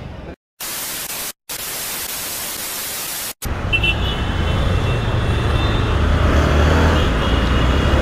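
A flat static-like hiss that cuts off abruptly twice, then from about three and a half seconds in, a Bajaj Pulsar 220's single-cylinder engine running steadily under way in city traffic, with road noise. The riding is the louder part.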